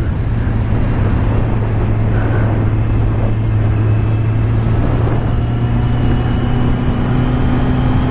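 Kawasaki Z800 inline-four engine running steadily at road speed, with wind noise on a helmet-mounted mic. About five and a half seconds in, a higher engine tone joins and slowly rises.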